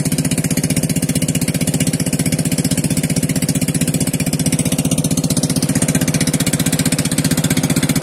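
Small motorboat engine running at a steady speed, with a fast, even beat of firing strokes.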